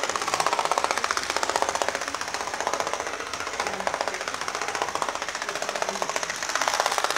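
Model train locomotive running on its track, a fast, steady mechanical rattle.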